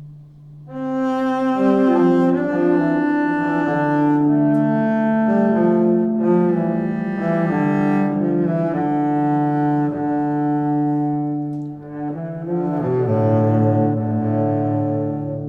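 Background music of slow, sustained bowed-string notes in a low register, cello-like, moving from note to note with a brief dip about twelve seconds in.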